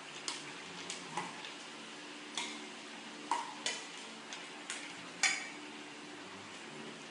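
Metal dog bowl clinking on a tiled floor as a dog eats from it and a person's hand reaches into the food: about nine sharp, ringing clinks at irregular intervals, the loudest about five seconds in.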